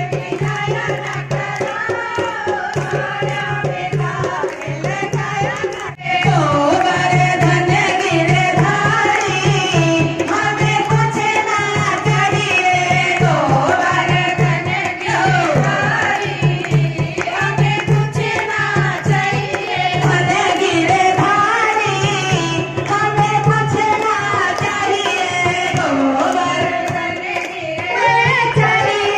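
A group of women singing a devotional bhajan together, with hand clapping and a hand drum keeping a steady beat.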